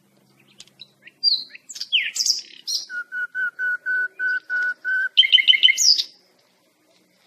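A songbird singing: a varied run of sweeping notes, then eight even notes on one pitch at about four a second, then a quick burst of chirps that ends on a rising note.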